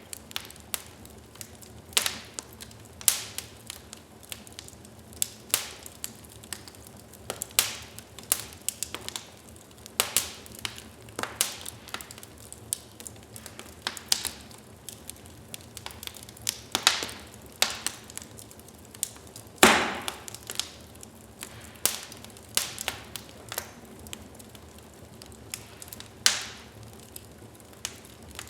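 Wood fire crackling in a fireplace: irregular sharp pops and snaps over a faint hiss, with one louder pop about twenty seconds in.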